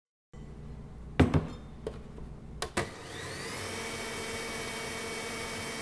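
A few knocks and clicks, then an electric stand mixer is switched on about three seconds in: its motor whines up to speed and runs steadily, the twin beaters turning in a bowl of whipping cream.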